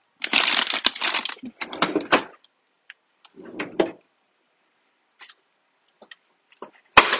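Plastic bags of frozen food rustling and crinkling as hands rummage through a freezer, with scattered small clicks. Near the end there is one sharp thud as the freezer door shuts.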